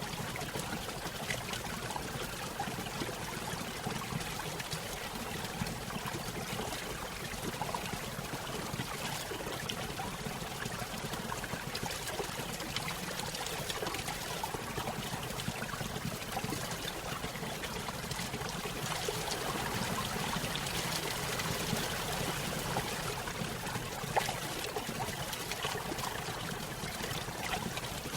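Small stream spilling over a little waterfall: steady trickling and splashing water, an even rush with many small droplet splashes.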